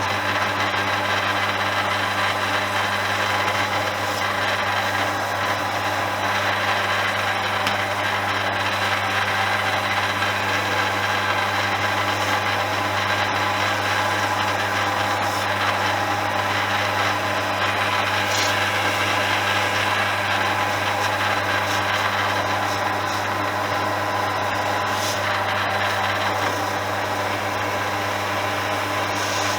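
Electric polishing machine running steadily with a constant low motor hum, polishing a chrome motorcycle fork tube.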